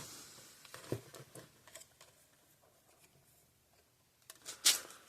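Small clicks and taps of tools and a circuit board being handled on a workbench while setting up to solder in a replacement capacitor: a few faint ticks about a second in, then a louder sharp click with a brief scrape near the end.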